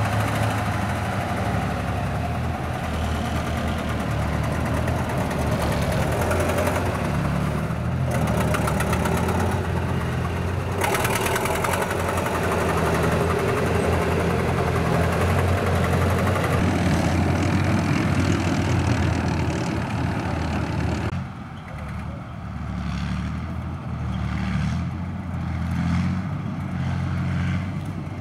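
Diesel engine of an OT-64 SKOT eight-wheeled armoured personnel carrier running under way across dirt. About three quarters of the way through it drops to a lower, quieter, pulsing run.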